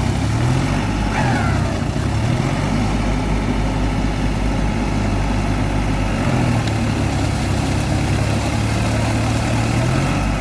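Tractor diesel engine running under load, its pitch dipping and rising a few times as the revs change.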